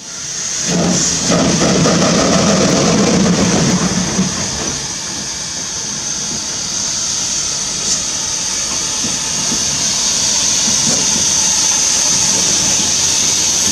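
Pt47 steam locomotive rolling slowly past close by, with a loud, steady hiss of steam. A heavier rumble fills the first four seconds, then the hiss dominates.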